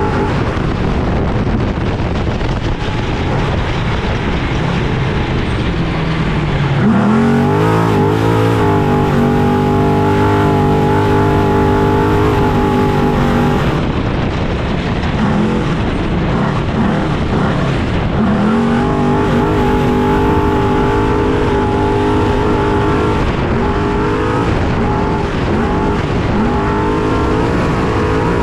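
Trophy truck's engine heard from inside the cab at race pace, pulling hard with rising pitch about six seconds in and holding high revs, then easing off and pulling up again about eighteen seconds in. Under it runs a constant rough noise from the truck's ride over the course.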